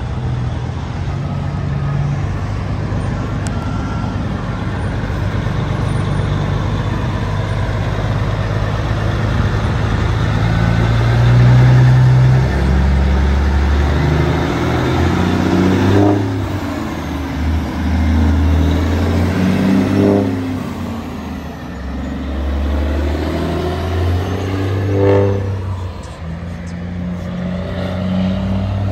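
Peterbilt 389 semi's Caterpillar diesel engine pulling a heavy oversize load away and accelerating through the gears, its pitch rising and dropping back at each shift about every four to five seconds as it passes close by.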